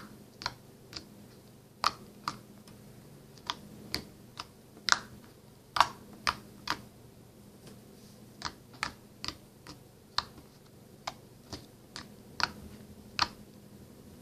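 Jelly slime mixed with bouncy putty being poked, giving sharp, irregular pops, about two a second.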